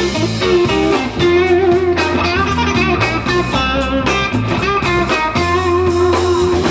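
Live blues band playing an instrumental stretch between sung lines, electric guitar to the fore over bass and drums.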